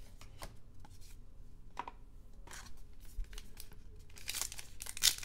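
Light clicks and rustles of trading cards being handled, then about four seconds in a trading card pack's plastic wrapper crinkles and begins to tear open, getting louder near the end.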